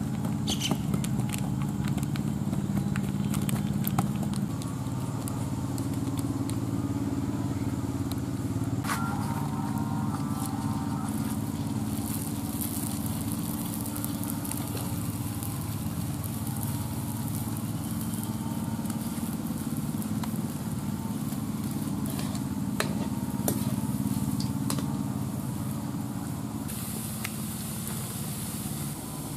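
Manioc patties deep-frying in hot oil in a steel wok over a wood fire, sizzling with scattered crackles and pops; the sizzle thickens toward the end. A steady low mechanical hum lies beneath it.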